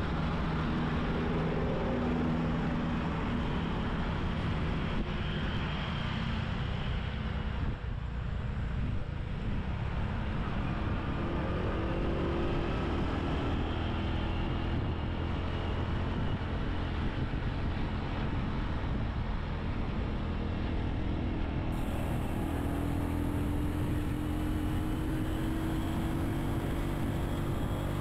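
Motorbike engine running on the move, its pitch rising and falling with speed, under steady wind and road noise.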